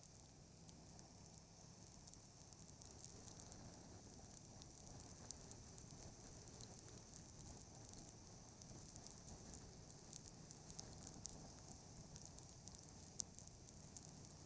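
Near silence: a faint steady hiss with scattered soft crackles.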